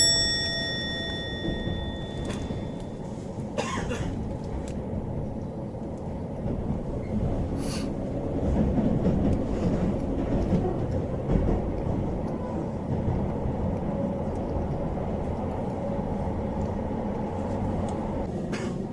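Steady low rumble of a train running, heard from inside the passenger car, with a few short sharp knocks from the car and track.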